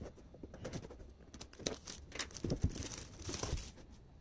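Utility knife slitting the plastic shrink-wrap seal on a smartphone box, with the thin film crinkling and tearing as it is cut and pulled away in short scratchy bursts.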